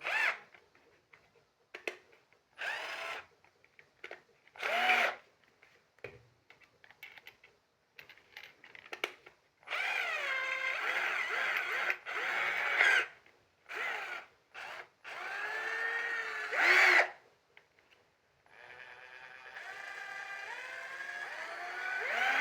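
Hillgrove HGCM1379M1 12V cordless drill motor run in a series of short trigger pulls, its whine rising as it spins up and falling as it stops. Near the end a longer run builds up steadily.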